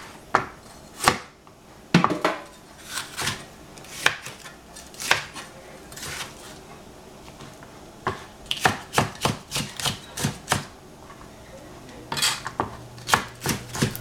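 Cleaver chopping little sweet peppers (capsicum) into strips on a plastic cutting board: sharp knocks of the blade against the board. A few spaced strokes come first, then quick runs of about four strokes a second in the second half.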